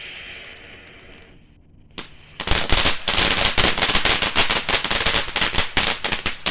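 Phantom Roaring Lion firework fountain: its spray hisses and fades away over the first second or so, then after a single pop it breaks into loud, dense, rapid crackling.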